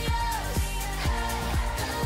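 Background pop music with a steady kick-drum beat, about two beats a second.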